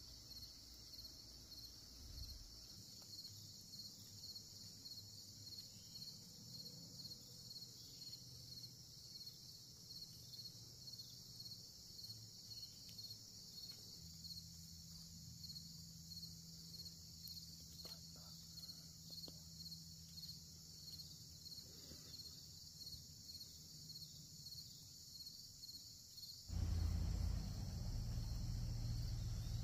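Insects chirping in a steady, high-pitched chorus with a regular pulse. Near the end a louder low rumble cuts in suddenly.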